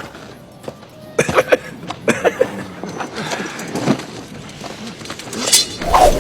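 Sharp knocks and clinks in quick clusters, some with a brief ring, then a swelling rush of noise near the end.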